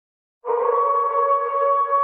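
Wolves howling: long, steady held notes on two pitches at once, starting abruptly about half a second in.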